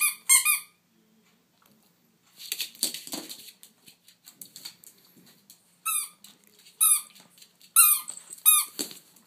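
Pink rubber squeaky toy squeaking as a poodle bites down on it: two sharp squeaks right at the start, then four more about a second apart near the end. A noisy clattering, scuffling stretch about two to three seconds in.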